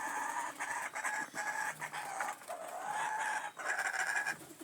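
Laughing kookaburra giving its laughing call: one continuous run of rapid, pulsing notes that lasts about four and a half seconds.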